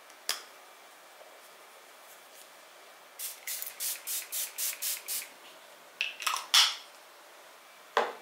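Facial mist pump-spray bottle spritzed about eight times in quick succession, each a short hiss. A few sharp clicks follow, and the bottle is set down on the desk with a knock near the end.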